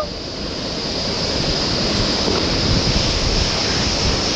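Wide waterfall pouring into a deep pool: a steady rush of falling water.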